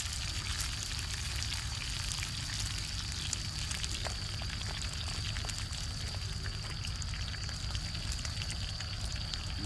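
Meat sizzling and spitting fat in a grill pan over a portable gas burner: a steady hiss with fine, irregular crackles. A steady low rumble and a thin high tone run underneath.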